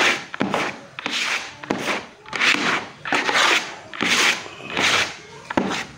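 Hand rubbing a small pad back and forth over the painted plywood door panel: about eight rasping strokes, roughly one every three-quarters of a second.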